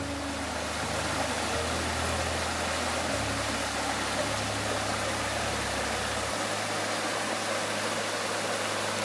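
A small mountain stream rushing steadily, with slow, held low notes of background music beneath it.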